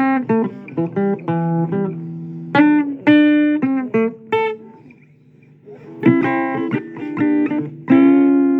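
Guitar playing a blues instrumental break of single plucked notes and short runs. It drops almost to nothing briefly past the middle, then picks up again and ends on a chord left ringing.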